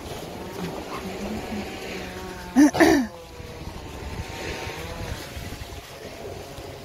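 A distant engine drones steadily with a slightly wavering pitch, and about two and a half seconds in a dog barks twice loudly.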